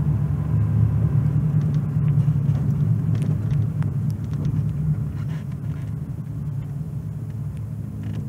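Steady low road and engine rumble of a car driving, heard from inside the cabin, easing off a little toward the end as the car slows.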